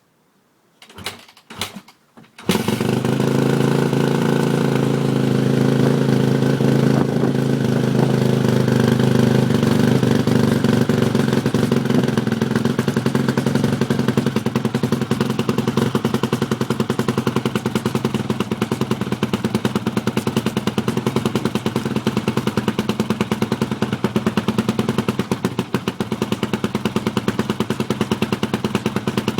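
Yamaha YZF 250 motorcycle engine starting: a few short sputters, then it catches about two seconds in and runs steadily at idle with a fast, even beat.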